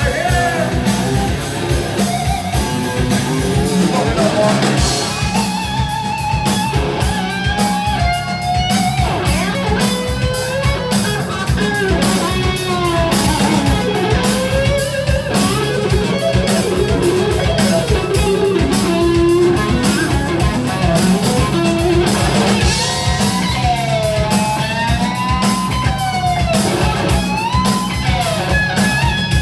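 Live rock band with an electric guitar playing a lead solo: melodic lines with bending, wavering notes over a drum kit.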